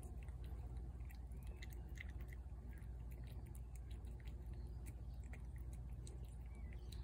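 A cat chewing food from a plate close by: a run of small, irregular clicks and smacks of biting and chewing.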